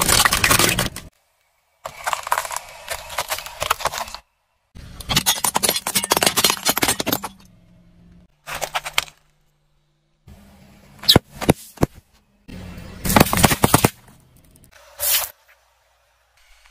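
A car tyre crushing hard plastic toys and brittle objects: repeated cracking, crunching and snapping in several short bursts, separated by abrupt silent gaps, with a few sharp single cracks near the middle.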